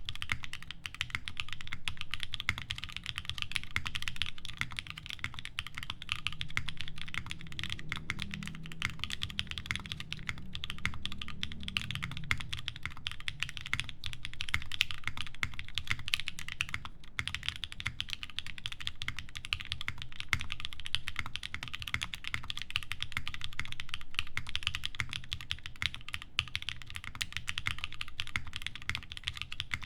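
Plateless Nascent mechanical keyboard with lubed SOTC switches, TX films and GMK keycaps being typed on continuously, a dense, steady run of keystrokes.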